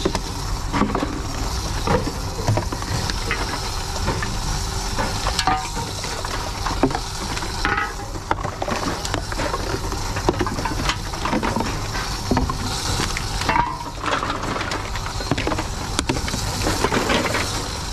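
Empty plastic bottles crinkling and clattering as they are handled and pushed one by one into a TOMRA reverse vending machine, with many small clicks and knocks over a steady background hum.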